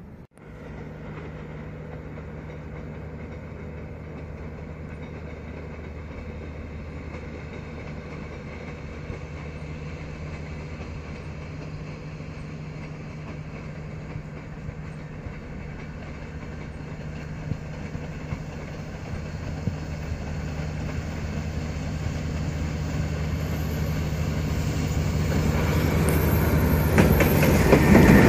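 D19E diesel-electric locomotive approaching with its engine running at a steady pitch, the sound growing louder throughout. Over the last few seconds the wheel clicks over the rail joints and the rush of the train come in as it draws close.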